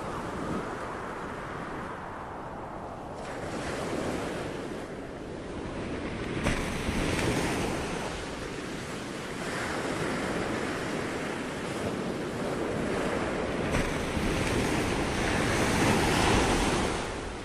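Ocean surf: waves washing in and drawing back, a rush that swells and fades every few seconds.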